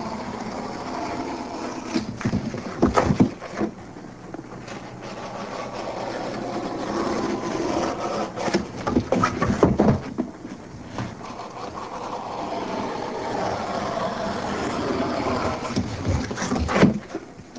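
A blade cutting through a cardboard box, an uneven scraping and tearing, with a few sharper knocks as the box is handled.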